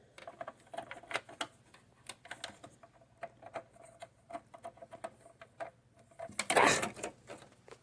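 Irregular light clicks and taps of computer parts being handled and fitted, with a louder rustle about six and a half seconds in.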